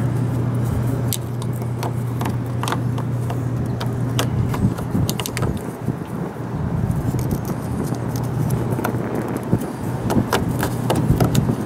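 Clicks, scrapes and rattles of plastic as a headlight bulb socket and its wiring are handled and pushed into the back of a plastic headlight housing, over a steady low hum.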